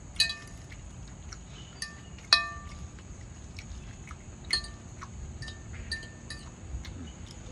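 Metal fork clinking and scraping against a ceramic bowl: about ten sharp, briefly ringing clinks at uneven intervals, the loudest about two seconds in.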